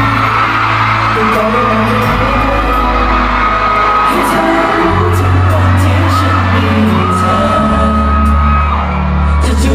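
Loud live pop music: a sung melody over heavy sustained bass and drum hits, with whoops from the crowd.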